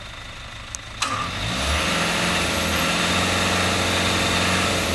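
Off-road 4x4's engine idling low, then revving up sharply about a second in and held at steady high revs under load as the vehicle sits bogged in deep mud.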